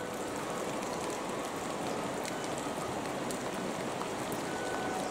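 Steady heavy rain falling, an even hiss with a few sharper ticks of nearby drops.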